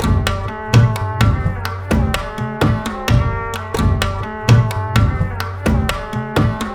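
Background music with a steady drum beat over sustained instrument tones.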